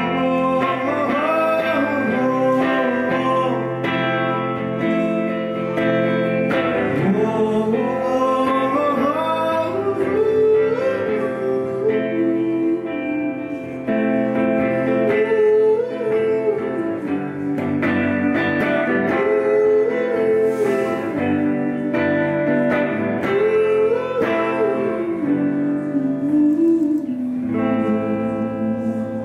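Live guitar strumming with a man singing a wordless, wavering melody line over it.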